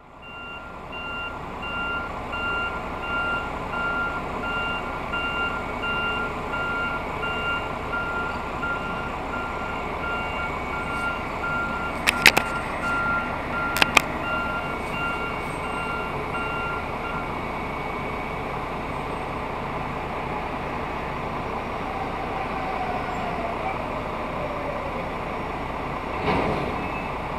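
Gantry crane's warning alarm beeping over and over, then stopping a little past halfway, against the steady running of an idling semi truck. Two sharp metal clanks come about halfway, and a heavier thud comes near the end.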